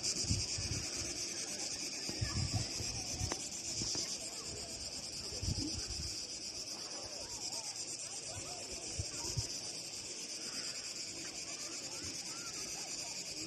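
Cicadas shrilling in a steady, unbroken high-pitched chorus, with occasional low wind buffets on the microphone.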